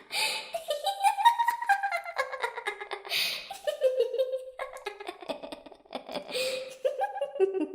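Spooky flute-like ghost tune, one wavering pitch that slides and steps up and down. Three short breathy hisses break it, about every three seconds.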